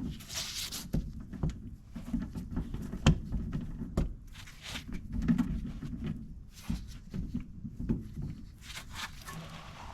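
Irregular metallic clicks and knocks with rustling as a wrench and socket are fitted and worked on a car's rear wheel hub bolts while they are torqued to 66 foot-pounds.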